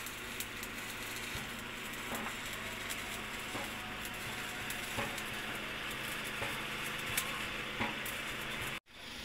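Electric arc welding of a steel support post onto the excavator's counterweight chassis: a steady crackling sizzle with small pops. It stops abruptly near the end.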